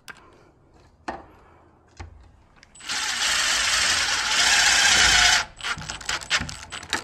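Cordless impact driver running a screw into a screen door's top rail for about two and a half seconds, starting about three seconds in and louder in its second half. Scattered tool clicks before and after.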